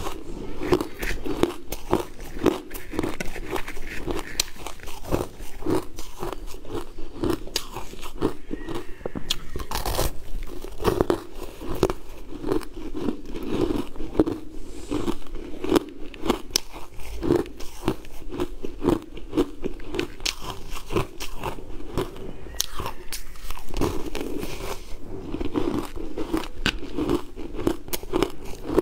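Close-up crunching and chewing of frozen sweetened purple ice: a mouthful being chewed at about two chews a second, with many sharp cracks as the ice breaks between the teeth.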